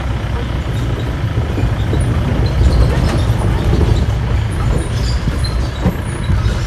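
Safari jeep driving over a rough dirt forest track: a steady low engine and road rumble with the body rattling over bumps, and a few knocks as the wheels cross wooden planks near the end.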